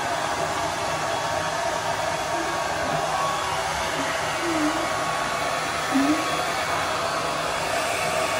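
Handheld hair dryer running steadily, blowing air in an even, unbroken hiss.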